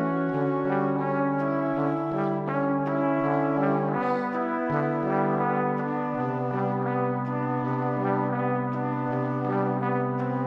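Background music of held, sustained chords that change every second or two, at a steady level.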